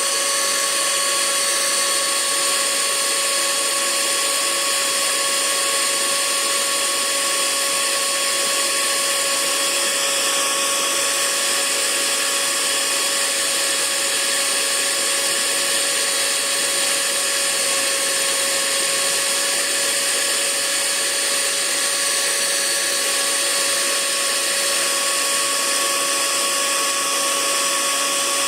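Hair dryer running steadily: an even rushing of air with a steady motor whine over it.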